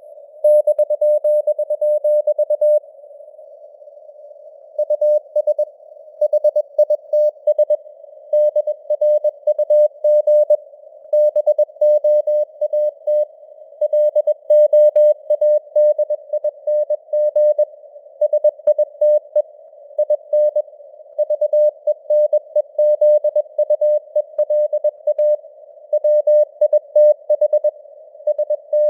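Morse code (CW) sent at 21 words per minute as a single mid-pitched tone keyed on and off in dots and dashes, over simulated radio noise, spelling out news headlines. The keying pauses for about two seconds a few seconds in.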